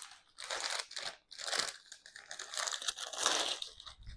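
Clear plastic saree packet crinkling in a string of short rustles as a folded saree is pulled out of it and shaken open.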